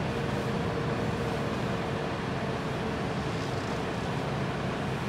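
Steady road and engine noise heard inside a campervan's cab while driving on a wet road, with a faint steady hum through the first few seconds.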